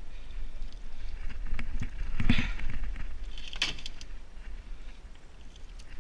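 A deer carcass being dragged over the gunwale of an aluminium canoe: a heavy thump about two seconds in, then a short, sharp scraping clatter a second later, over a steady low rumble.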